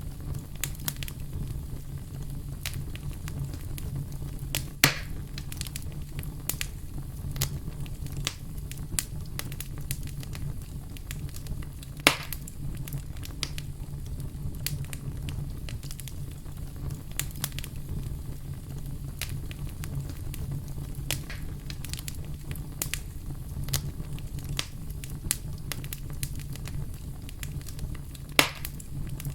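Wood fire crackling in a fireplace: a steady stream of small crackles over a low, steady rumble, with three louder pops, about 5, 12 and 28 seconds in.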